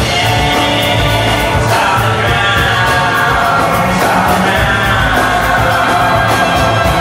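Live roots-country band playing a song: two men singing together over strummed acoustic guitar, upright bass and a steady drum beat.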